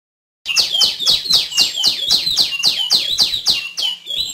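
Female tiểu my bird calling: a rapid run of about a dozen sharp notes, each falling steeply in pitch, about three a second. It starts about half a second in and stops abruptly.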